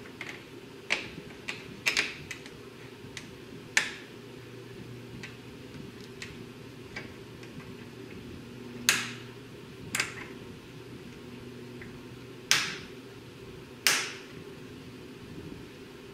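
Pliers working a hose clamp on the upper radiator hose: a dozen or so sharp metallic clicks and snaps at uneven intervals, a few of them much louder than the rest.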